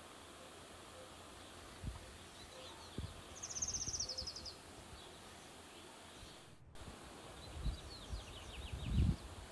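White-eyes chirping: a quick rattling trill of high chirps about three seconds in, then a run of short falling chirps near the end. A few low thumps come in between.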